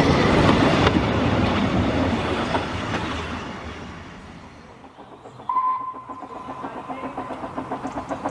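A narrow-gauge Ffestiniog Railway train rumbling past and fading away. About halfway through, a single short steady tone sounds once. Near the end a quick regular beat starts and grows.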